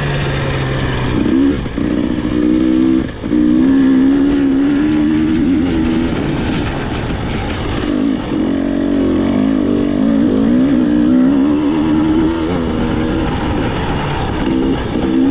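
KTM 300 two-stroke dirt bike engine under way, its pitch rising and falling as the throttle is worked. It dips briefly twice in the first few seconds as the throttle is rolled off.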